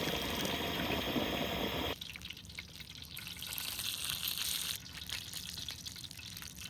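Egg rolls crackling and sizzling as they fry in oil that is not yet fully hot. For the first two seconds a louder, steady rushing hiss covers the crackle, then drops away abruptly.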